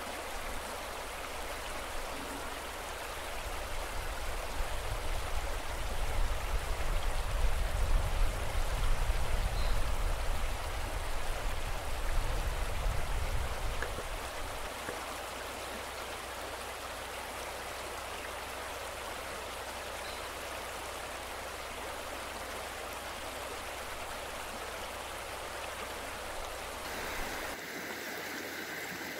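Shallow river flowing over stones, a steady rushing of water. A louder low rumble runs over it from about four seconds in to about fourteen.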